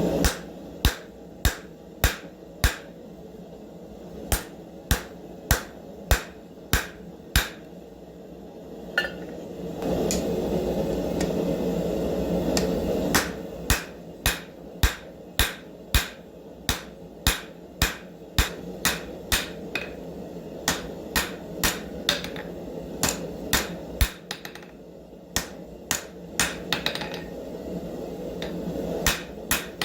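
Hand hammer striking a bar of 5160 spring steel, drawing a taper on a chisel's striking end: sharp blows at about two a second. The hammering pauses for a few seconds about ten seconds in, while a steady rushing noise swells.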